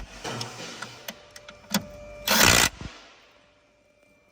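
Power tool tightening bolts in short bursts, the longest about two and a half seconds in, with a few clicks between.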